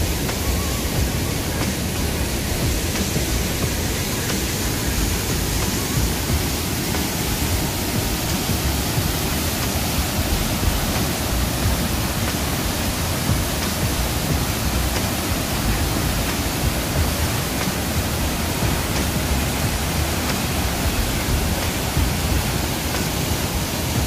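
Waterfall: a heavy torrent of white water pouring over rock, giving a steady, even rush that does not change.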